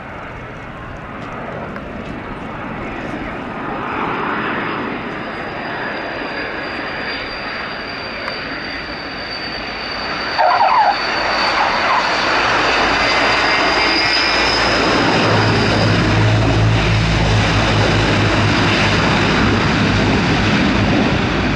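Transall C-160's twin turboprop engines running with a high turbine whine as the transport comes in to land. A brief tyre squeal at touchdown about halfway through, then the propeller drone grows louder and deeper as it rolls out.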